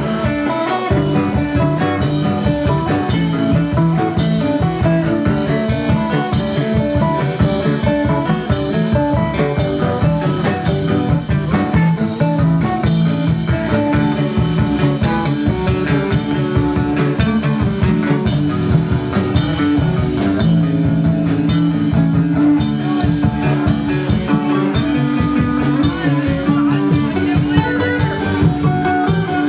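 A live rock band playing loudly: electric guitar, bass guitar and drum kit.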